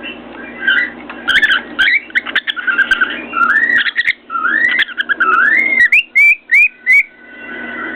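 Cockatiel whistling a string of rising and falling notes, ending in a few short upward chirps, with sharp taps of its beak against a mirror mixed in near the start.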